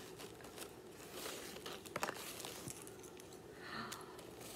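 Faint rustling and crinkling of a small packaging bag being handled and opened by hand, in short bursts with a few light clicks.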